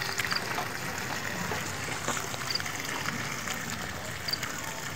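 Clean water trickling and running steadily into a dug, well-like pit.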